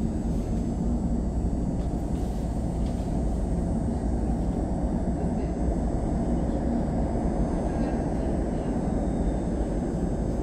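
Steady low rumble filling an underground subway station, with no single sound standing out.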